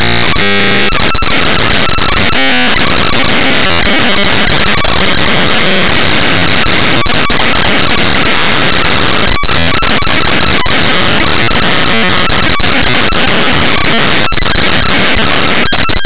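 Raw bytes of the Cinebench 2024.1.0 executable played back as 8-bit mono audio: loud, harsh digital noise with faint steady high whistles and a few brief dropouts.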